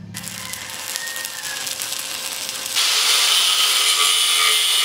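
Angle grinder cutting metal, a steady hissing grind that gets much louder a little under three seconds in.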